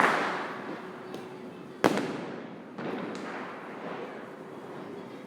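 Diwali firecrackers going off: the crackle of an earlier burst fades away, then one sharp, loud bang comes just under two seconds in, followed about a second later by a smaller blast and a few faint distant pops.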